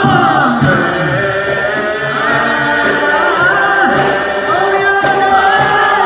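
A group of men singing together in chorus, several voices moving in pitch at once.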